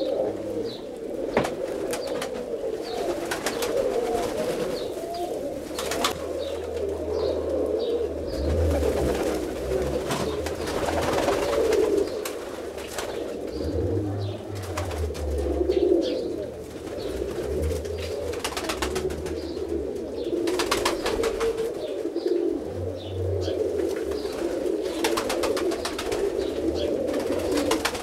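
A flock of domestic roller pigeons cooing steadily and overlapping, with brief clusters of sharp clicks now and then.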